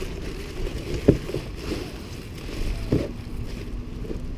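A steady low outdoor rumble, with two short clicks about a second in and near three seconds as a metal exhaust hanger band is handled. A faint steady hum comes in after about three seconds.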